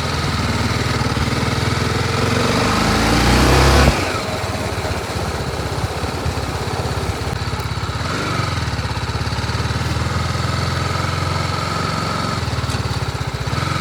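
BMW G 310 RR motorcycle's single-cylinder engine idling, revved up over a couple of seconds and dropping back to idle when the throttle is let go about four seconds in. A smaller blip comes about eight seconds in, then steady idle.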